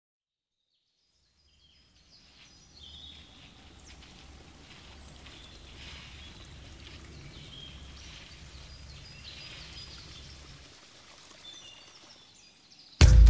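Woodland ambience fading in after about two seconds of silence: small birds chirping over a low, steady outdoor rumble. A loud drum hit comes in right at the end as music starts.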